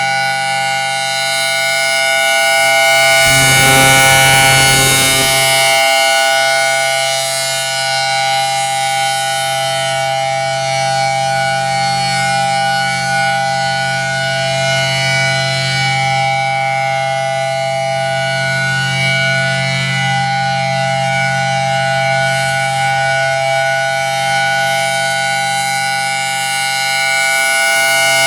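Federal Signal Thunderbolt 1000T outdoor warning siren sounding a loud, steady tone during its monthly test. The pitch holds level while the sound swells louder about four seconds in and again near the end as the rotating siren head sweeps around.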